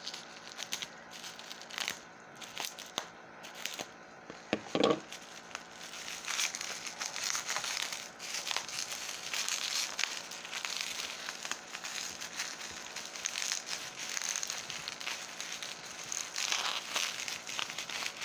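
Bubble wrap being cut open with a pocket knife and unwrapped. Scattered crinkles and clicks, with a short, loud squeak about five seconds in, then continuous crinkling from about six seconds in as the wrap is pulled off.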